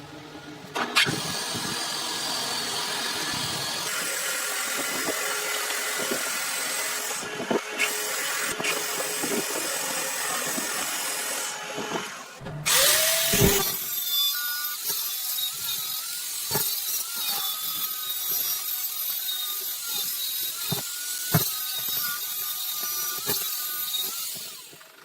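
Metal lathe running while it machines a workpiece, drilling or cutting. About halfway there is a brief loud swoosh, and after it the machine sound settles into a steadier whine with scattered ticks.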